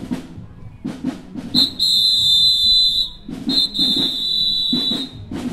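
Marching band drumline playing a cadence of drum strikes. Over it a shrill whistle is blown in two long blasts, each about a second and a half.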